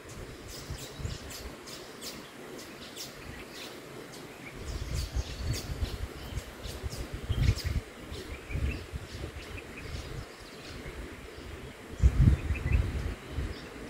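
Outdoor nature recording: small birds chirping in quick little series of short notes, over a low rumble that swells a third of the way in and again near the end.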